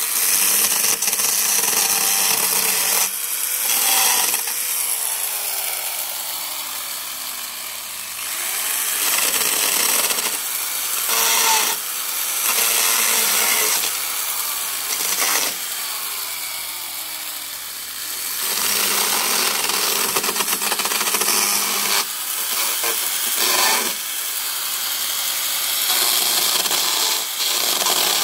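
Small chainsaw cutting through Sang Mon bamboo near the ground, running continuously. Its pitch slides and its loudness rises and falls as the chain bites into the culms and eases off.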